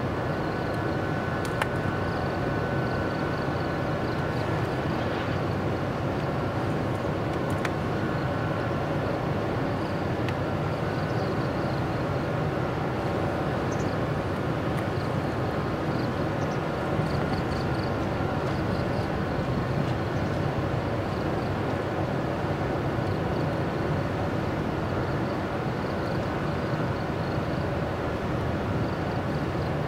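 Steady low hum of a 45-ton electric locomotive moving slowly along the yard track. Insects chirp above it in short repeated pulses.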